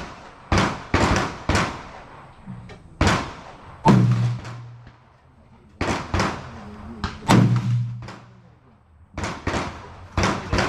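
Gunshots from several guns on a shooting range: about a dozen sharp reports at irregular intervals, some coming in quick runs a fraction of a second apart.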